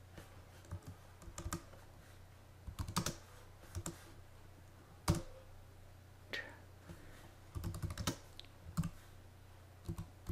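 Keystrokes on a computer keyboard, coming in short irregular clusters with pauses between them, over a faint steady low hum. The sharpest single key press comes about five seconds in.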